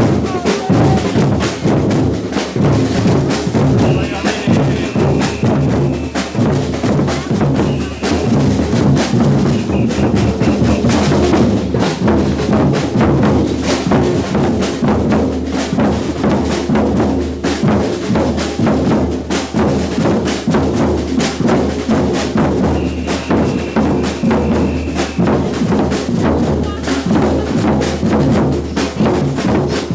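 Batucada samba percussion ensemble playing a steady groove: surdo bass drums under snare drums and higher hand percussion. A high whistle is blown in short blasts several times.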